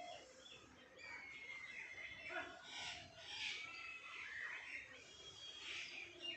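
Several birds chirping together: short high chirps and quick whistled notes overlapping throughout, with one thin whistle held for about a second, a second in.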